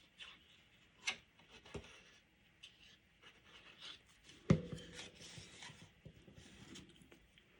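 Paper craft pieces being handled, rubbed and pressed together on a work table, with a few light taps and one sharp knock about four and a half seconds in that rings briefly, like a hard object set down.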